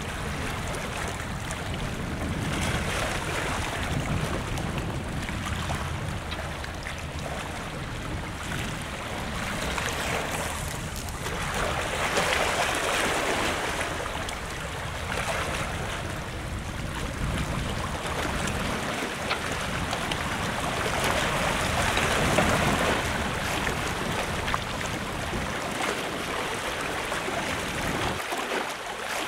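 Sea waves washing against a seawall, the hiss of the water swelling and easing every few seconds, with wind rumbling on the microphone.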